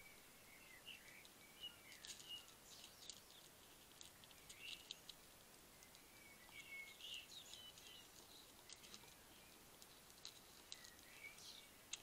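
Faint, irregular crunching and clicking of a European hedgehog chewing dry kitten biscuits, coming in several short bursts, with faint high chirp-like squeaks in between.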